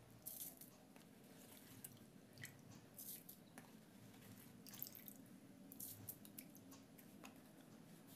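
Faint bubbling of spiced cooking water boiling in a pan with the rice just added, with irregular small pops and drips over a low steady hum.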